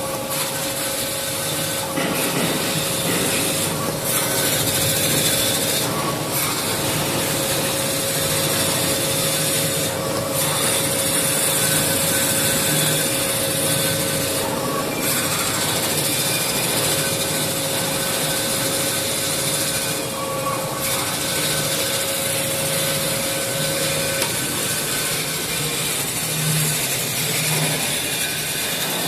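Band-saw paper log cutter running, its blade slicing through a tissue paper log into rolls, with a steady hum that stops about three quarters of the way through and a few short rasping passes at irregular intervals.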